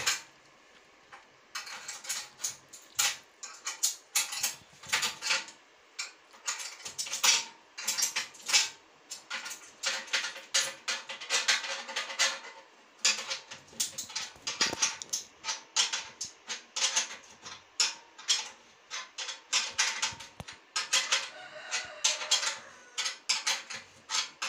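Steel spanner clicking and scraping against a nut and the metal leg of an industrial sewing machine stand as a bolt is tightened by hand. Quick, irregular metallic clicks, several a second, start about a second and a half in.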